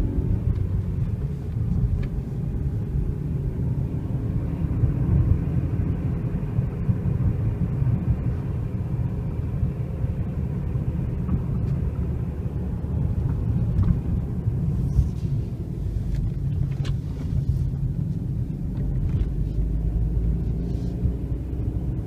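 2005 Suzuki Reno hatchback being driven, heard from inside the car: a steady low engine and road rumble, with the engine note drifting up and down as the speed changes.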